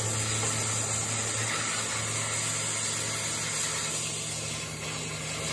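Oxy-fuel cutting torch hissing steadily as its flame and oxygen jet cut through steel plate, with a steady low hum underneath.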